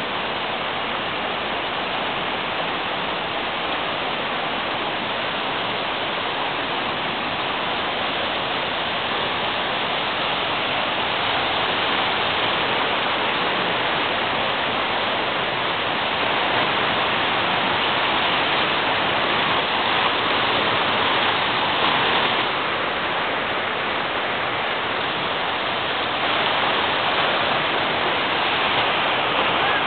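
Waterfall: a steady rush of falling water, heard close by.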